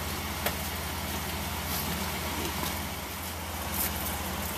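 Truck engine idling steadily, with one light click about half a second in.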